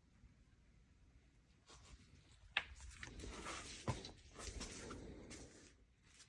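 Faint rustling and handling noise starting about two seconds in, with two sharp clicks, fading out shortly before the end.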